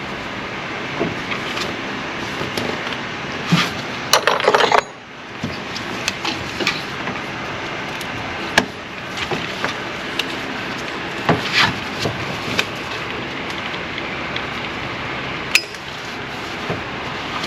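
Hand tools and metal parts clinking and knocking while parts are worked loose during AC compressor removal, over a steady background hiss. The busiest clatter comes about four seconds in, with single sharp clicks later on.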